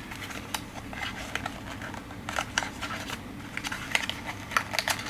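A small cardboard product box being handled and opened by hand, its flaps and paper insert giving irregular short clicks and scrapes that come thicker in the second half, over a faint steady room hum.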